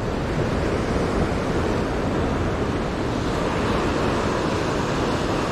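Rough sea surf breaking and washing around shore rocks: a steady rushing noise.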